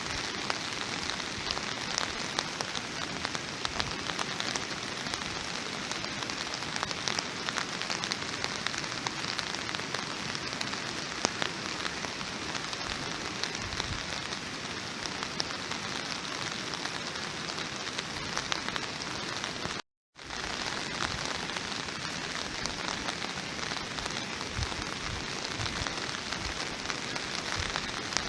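Steady rain falling on a surface, a dense even patter of drops. It cuts out completely for a split second about two-thirds of the way through, then resumes unchanged.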